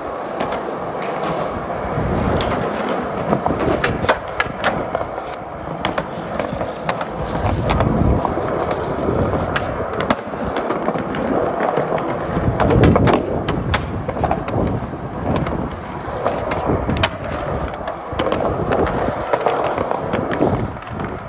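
Skateboard wheels rolling on concrete, a continuous rumbling roll, with scattered sharp clacks of the board.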